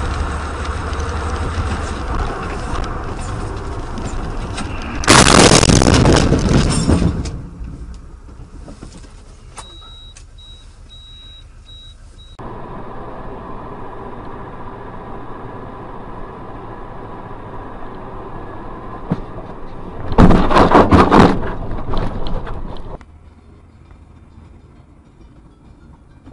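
Road and engine noise of vehicles on dash-cam recordings, changing abruptly between clips, with two loud, noisy bursts of about two seconds each, about five seconds in and again about twenty seconds in, typical of vehicle collisions.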